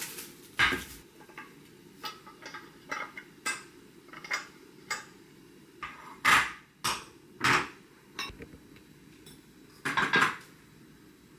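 Dishes clinking and being set down, a string of separate knocks and clatters, the loudest around six to eight seconds in and again near ten seconds.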